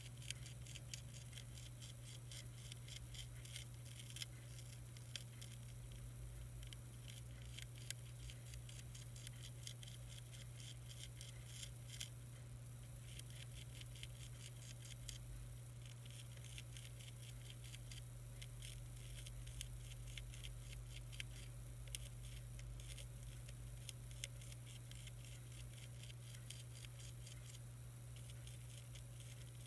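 Monarch caterpillars chewing a milkweed leaf: faint, rapid crackling clicks over a steady low hum.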